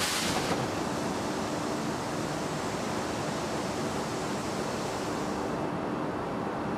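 Steady, even machinery noise of a hot strip steel mill, with a brief sharp hiss at the very start. The high end of the noise thins out a little after five seconds in.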